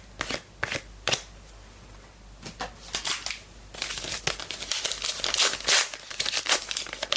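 A few light clicks in the first second, then the foil wrapper of a trading-card pack crinkling and tearing as it is opened by hand, denser from about halfway through.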